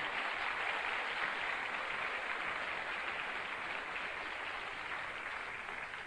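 Audience applauding, a dense steady clatter of many hands that eases slightly near the end.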